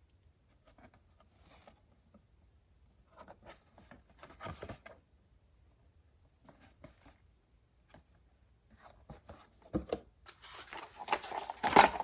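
Handling noises as the box and radio are moved about: scattered light rustles and clicks, then denser, louder rustling from about ten seconds in.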